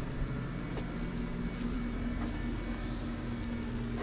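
Steady mechanical hum of a running engine or motor, with an unchanging low tone.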